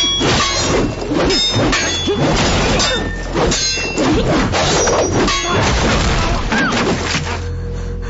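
Sword-fight sound effects: steel blades clashing in quick succession, many clangs ringing on, mixed with thuds and crashes. The clashing stops about seven seconds in.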